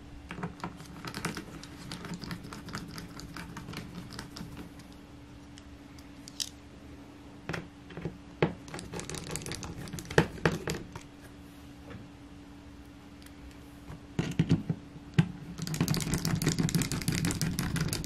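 A small screwdriver driving the bottom-cover screws back into a Lenovo Slim 7 Pro X laptop, with the cover being handled. The sound comes in three spells of rapid clicking and scratching, with quieter pauses between them.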